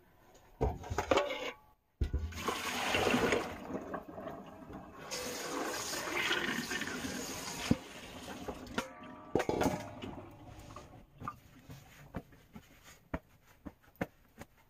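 Water running from a kitchen tap as grapes are rinsed under it: a steady rush for about six seconds, then a brief splash. After that come a string of light clicks and taps as the wet grapes and the paper towel are handled.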